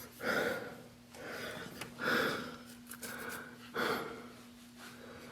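A person breathing close to the microphone: three audible breaths about two seconds apart, over a faint steady hum.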